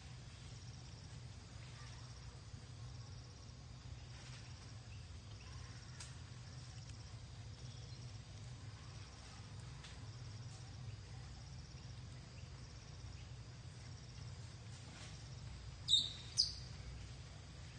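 Insects chirring steadily in a high, fine pulsing trill over a low steady rumble. Near the end come two short, loud high chirps about half a second apart.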